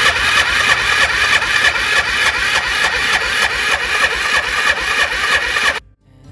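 Four-wheeler's engine being cranked on its electric starter, turning over with a rapid, even pulse but not catching. It won't start, a no-start the owner puts down to a dead battery and a spark plug that wasn't sparking. The sound cuts off suddenly near the end.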